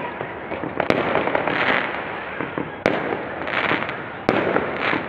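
Fireworks going off: three sharp bangs about one, three and four seconds in, with crackling between them.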